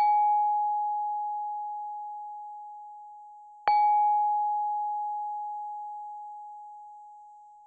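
A bell-like ding struck twice, about three and a half seconds apart; each strike is one clear, fairly high tone that rings on and fades slowly.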